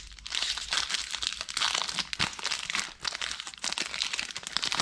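Foil wrapper of a Topps baseball card pack crinkling and crackling as it is handled and torn open, with a short lull about three seconds in.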